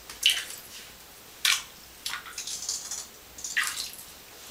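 Bathtub water splashing and swishing as a JackAll Aragon MR floating wobbler is worked through it: four short splashes, spread a second or so apart.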